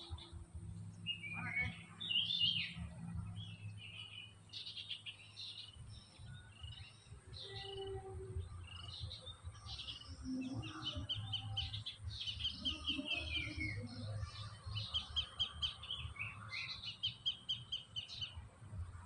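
Small songbirds chirping and trilling, with fast runs of repeated notes in the second half, over a faint low steady hum.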